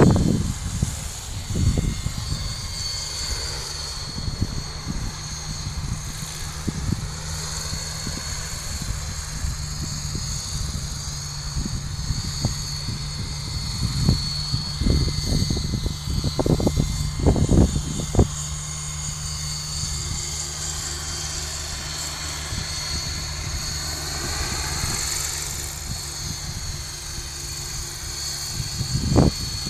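Electric coaxial RC model helicopter in flight, its brushless motor and two contra-rotating three-blade rotors giving a steady hum with a high motor whine whose pitch shifts as it manoeuvres. A few short low rumbles come and go around the middle and near the end.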